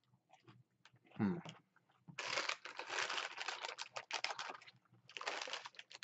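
A small bag of fried cheese curds crinkling and rustling in bursts as a hand rummages in it for a curd, the longest stretch from about two to four and a half seconds in, and a shorter one near the end. About a second in comes a brief voice sound, falling in pitch.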